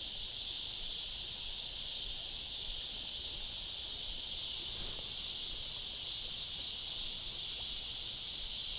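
Steady, unbroken chorus of insects such as crickets or katydids, a high even hiss that neither rises nor fades.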